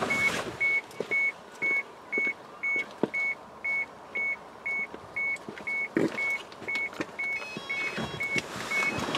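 An electronic warning beeper sounding a short high beep about twice a second, steady and even, with a soft knock or two in between.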